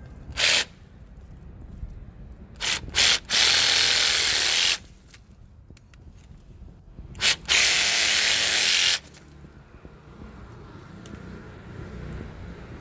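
Parkside PAAS 12 A1 12-volt cordless garden saw, a small reciprocating pruning saw, sawing through a wooden branch. Its motor starts in short blips, then runs for about a second and a half. After another blip it runs for about a second and a half again.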